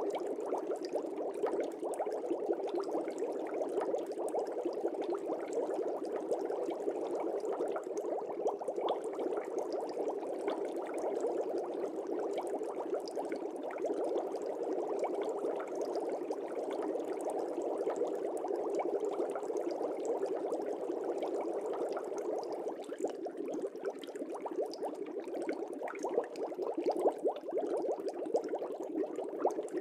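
Fish tank bubbling steadily: a continuous, dense stream of small bubbles in the water.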